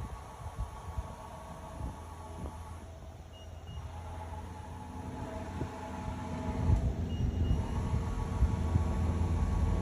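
Z-axis drive of a TRAK FHM7 CNC bed mill traversing under power: a steady whine of several tones over a low hum. The pitch shifts about three seconds in and again about seven and a half seconds in, and the sound grows louder toward the end.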